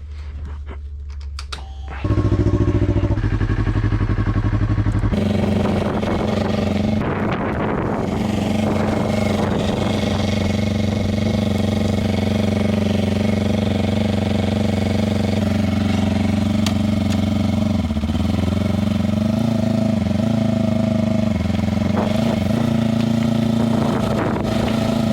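Yamaha R3 motorcycle's 321 cc parallel-twin engine starting about two seconds in and then idling steadily while it warms up. Its note shifts about five seconds in, and it cuts off abruptly at the end.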